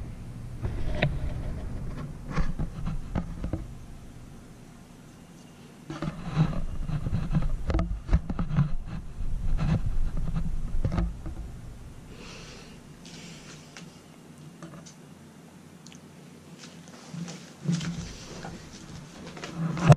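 Handling and movement noises in a small room: scattered knocks, clicks and scrapes, coming in busy stretches with quieter gaps, as someone moves about and handles objects close to the microphone.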